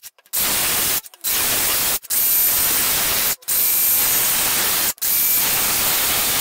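Milwaukee circular saw with a 60-tooth fine blade cutting through melamine board, a steady loud rush of noise. It comes in about five stretches of a second or so, each breaking off abruptly.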